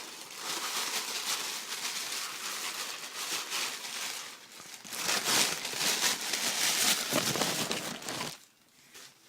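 Packaging crinkling and rustling as a gift pack is unwrapped by hand. It grows louder about halfway through and stops shortly before the end.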